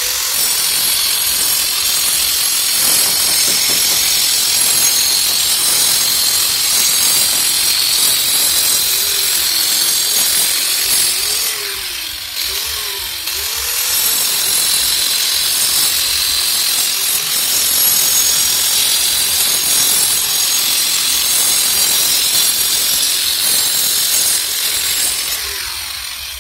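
Angle grinder with a cutting disc running steadily as it cuts a channel into red brick wall for a water pipe, a loud high-pitched grinding hiss that trails off near the end.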